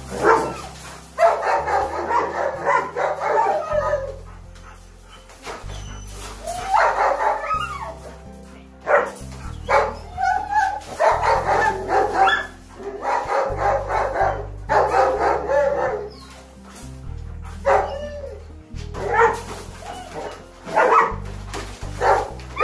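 A dog barking repeatedly in short bursts, over background music with a steady bass line that changes notes every second or two.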